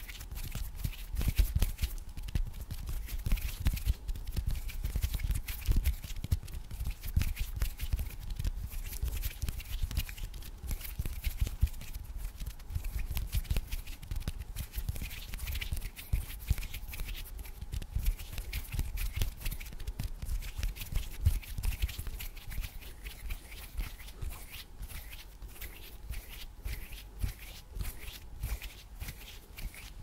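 Close-miked ASMR hand sounds: fingers rubbing and pinching together and hands moving right at the microphone, making a dense, irregular run of small clicks and soft low thumps.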